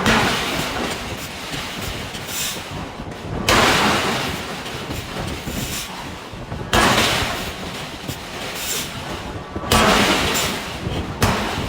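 Giant hydraulic forging hammer striking hot steel, with five heavy blows roughly every three seconds. Each blow is followed by a noisy tail that fades over a second or two, and a steady rumble of machinery runs underneath.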